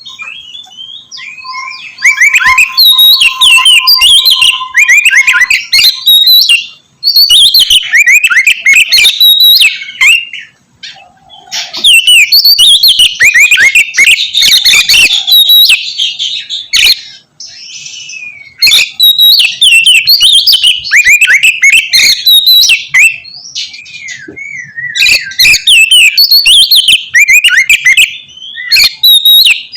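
Oriental magpie-robin (kacer) singing loudly in rapid, varied whistled phrases, bout after bout with short pauses between. It is the aggressive full song of a male in top form, used to provoke rival kacer.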